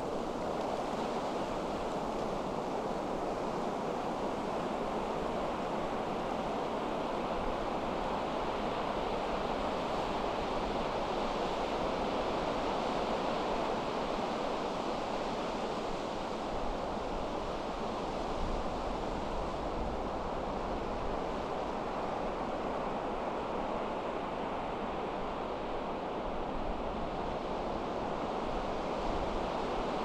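Pacific Ocean surf breaking continuously in strong wind: a steady wash of waves with no single crash standing out, and wind buffeting the microphone.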